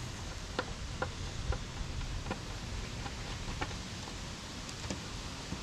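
Light metallic clicks, roughly one or two a second, as a hand screwdriver turns a mounting screw into the antenna base on the truck's fender.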